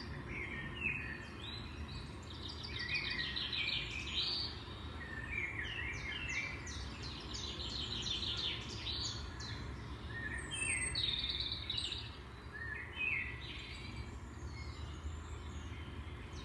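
Several small songbirds chirping and singing in quick trills and repeated high notes, overlapping one another, over a steady low background rumble.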